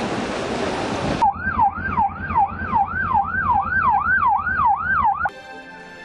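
About a second of steady rushing noise, then a vehicle siren yelping: a tone that rises and drops sharply, repeated about two to three times a second. The siren cuts off suddenly near the end and soft music starts.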